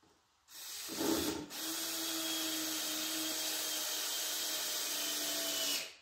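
Cordless drill running into the wooden frame of a bench: a short burst, a brief let-up, then about four seconds of steady motor whine under load before it stops.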